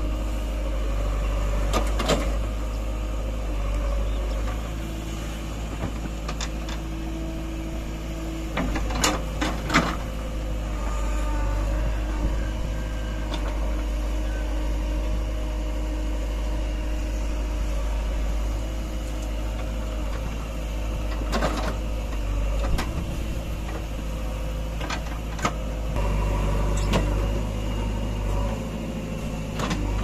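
JCB 3DX backhoe loader's diesel engine running steadily under hydraulic load while the backhoe digs and swings soil into a truck, its note shifting a couple of times as the arm works. A handful of sharp knocks cut through it, twice in quick succession about nine seconds in.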